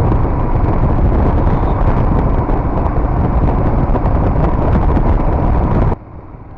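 Wind rushing over the camera microphone of a moving Royal Enfield Himalayan motorcycle, with its single-cylinder engine running under it. About six seconds in the sound drops suddenly to a much quieter ride noise.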